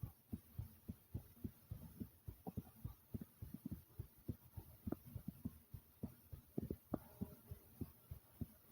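A person's heartbeat heard up close, beating fast: a rapid, even run of short, low thumps, about four to five a second.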